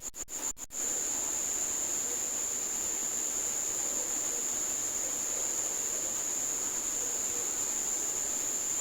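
A high-pitched, steady buzzing whine over a faint hiss. It pulses rapidly at first and then holds unbroken from about a second in. The uploader presents it as the unexplained sound of a demon or beast.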